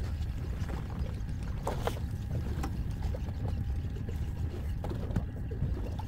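Steady low rumble aboard a fishing boat on the sea, with a few faint clicks and knocks.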